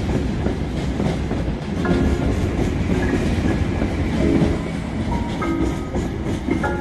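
SNCB double-deck electric train and its electric locomotive passing close by, a steady rumble with clacking of wheels over the rails. Soft piano backing music plays short notes over it.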